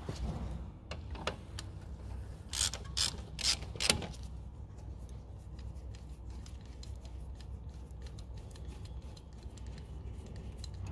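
Socket ratchet clicking as the lower 13mm caliper guide bolt is wound out of the front brake caliper. A few louder knocks come in the first four seconds, then a long run of light, fast ticks.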